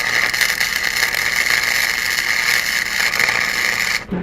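Flux-core wire welder arc crackling steadily as a nut is welded onto a broken exhaust stud, cutting off suddenly near the end.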